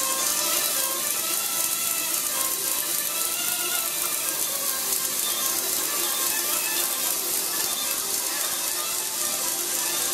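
A reed pipe played into a microphone: a continuous buzzing tone held without a break, with several notes sounding together and shifting in pitch.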